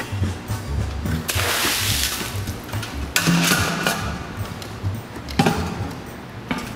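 Background music with a steady, repeating bass beat. About a second in, a burst of rushing noise lasting about a second rises over it, a shorter one follows near the three-second mark, and a single sharp knock comes a little after five seconds.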